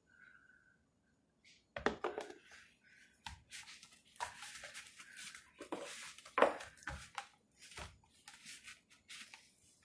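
Hands kneading noodle dough in a plastic mixing bowl: irregular squishing and scraping, with knocks of the bowl, starting about two seconds in.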